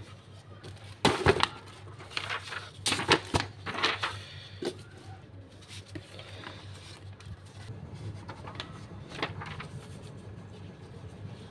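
Sheets of coloured craft paper handled and slid against one another: a cluster of crisp rustles in the first few seconds, then a few lighter scattered ones, over a low steady hum.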